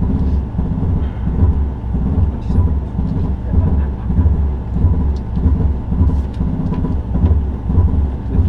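In-cabin sound of a Subaru Impreza rally car on a stage: a heavy, uneven low rumble of its flat-four engine and road noise through the shell.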